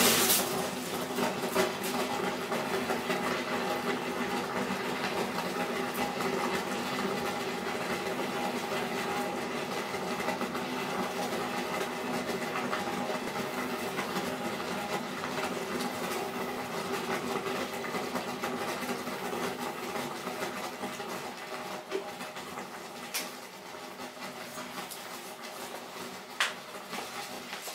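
Melt drain cleaner reacting in a bathtub drain: a steady boiling, fizzing churn in the pipe that gives off corrosive fumes and fades slowly.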